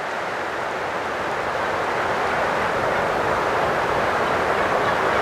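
Steady rushing noise, like wind or moving air over the microphone, growing slightly louder, with no distinct calls or knocks.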